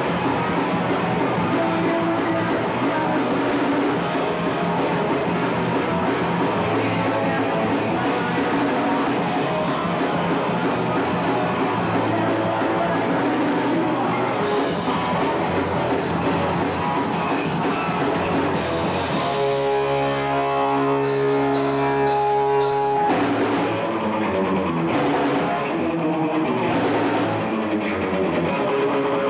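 Live punk rock band playing fast with distorted electric guitars, bass guitar and drums. About twenty seconds in, the drums drop back while one chord rings out for a few seconds, then the band comes back in with a descending riff.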